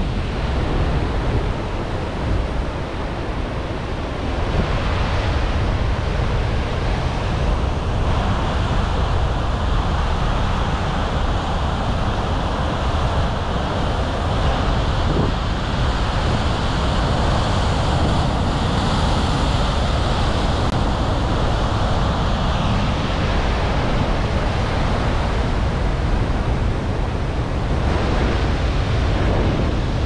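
Rough sea surf crashing and washing over rocks, a continuous churning roar of breaking waves that swells louder about five seconds in. Wind buffets the microphone underneath.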